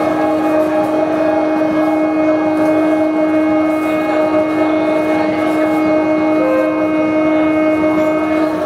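Live ambient music drone: several sustained tones held together as a steady chord, a low note entering at the start and dropping out near the end.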